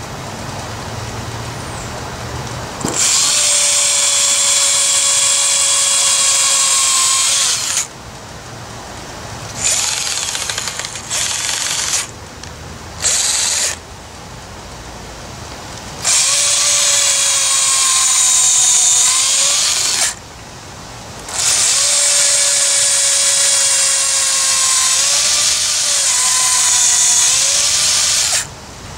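Electric hand drill boring holes into the old wooden handle wedged in a sledgehammer head's eye, to drill it out. It runs in several bursts: three long runs and two short ones. Its whine sags and wobbles in pitch as the bit loads up in the wood.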